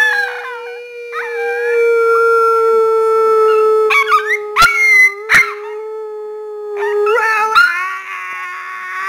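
Dog howling in a long, drawn-out note that holds steady, dropping a little in pitch near the end, with a few sharp clicks over it.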